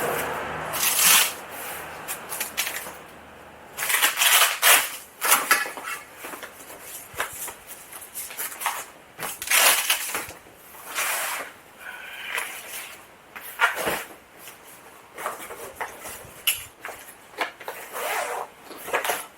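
Packaging being handled, rustling and crinkling in irregular bursts as hydrofoil parts are packed back into their box and bag.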